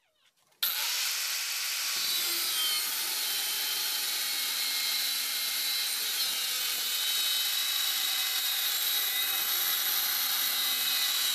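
Angle grinder with an abrasive cut-off disc cutting through a steel plate to rough out a knife blank: a steady, high-pitched grinding of the disc through metal. It starts abruptly about half a second in and holds at an even level.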